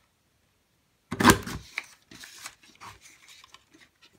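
Tulip border punch pressed down once about a second in, a single loud snap as it cuts through the paper, followed by softer paper rustling and small clicks as the sheet is slid along and lined up for the next punch.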